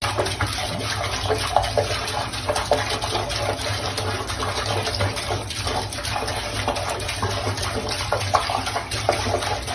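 Steady rush of running water over a low hum, cutting in and cutting off suddenly.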